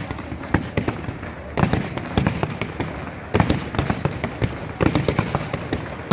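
Aerial fireworks display: repeated sharp bangs of bursting shells in quick clusters about every second, over continuous crackling.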